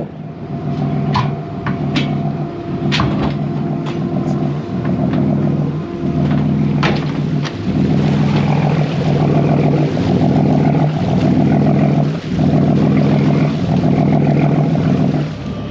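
Fishing boat's engine running under way, its note swelling and dipping every second or so, over water rushing past the hull. A few sharp knocks or splashes stand out in the first seven seconds.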